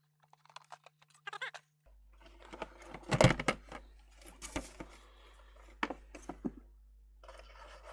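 Hands working on the plastic casing of a Revitive foot circulation machine during teardown: scattered clicks, taps and rattles, with the loudest knock a little after three seconds in.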